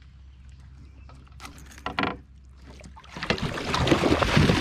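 Handling noise in a fishing kayak: a couple of knocks on the hull, then, about three seconds in, a loud stretch of scuffling and thumps.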